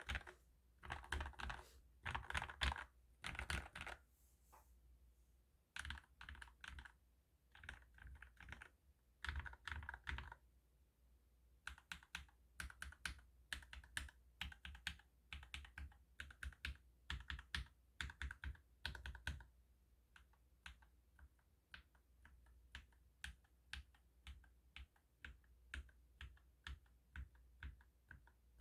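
Typing on a COX Pinnace mechanical keyboard with lubed JWK Black linear switches. Quick runs of keystrokes come first, with a couple of short pauses, and in the second half the keys are struck one at a time at about two a second.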